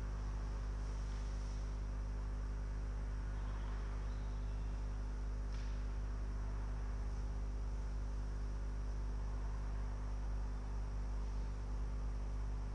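Steady electrical mains hum with a faint hiss, with a faint click about five and a half seconds in.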